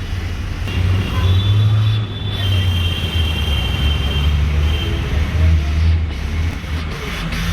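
Road traffic: a continuous low rumble of passing vehicles, with a thin high squeal from about one to four seconds in.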